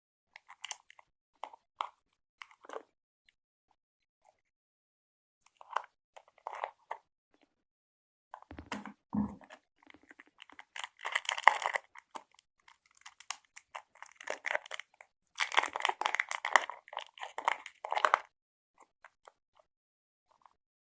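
Close-miked crunching and crackling of candy and its packaging, in irregular bursts with short pauses and heaviest in the second half, with two low thumps a little before the middle.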